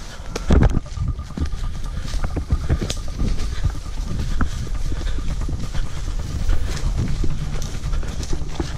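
Hurried footsteps through brush and woods: an irregular run of thumps and rustling, with low rumbling from a camera being carried on the move.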